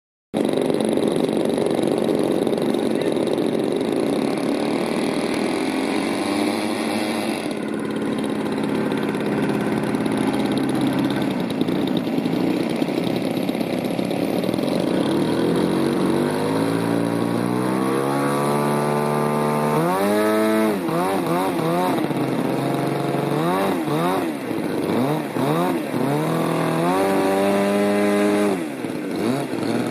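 Model aircraft engine running steadily, then revved up in steps and blipped rapidly up and down in pitch over the second half.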